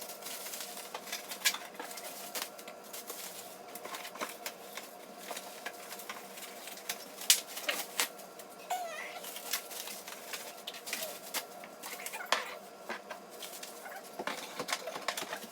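Glassware being wrapped and packed into a box: scattered light clicks, taps and rustles of glasses and bubble wrap over a faint steady hum.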